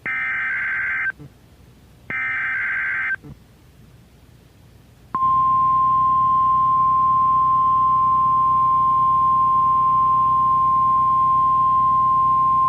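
NOAA Weather Radio required weekly test: two one-second bursts of SAME digital header tones, about a second apart. About five seconds in, the steady 1050 Hz warning alarm tone comes on and holds; this is the tone that switches weather alert receivers on automatically.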